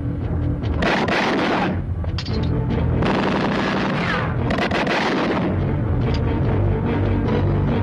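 Background film music under several bursts of rapid gunfire, each burst about a second long, with the music running steadily beneath.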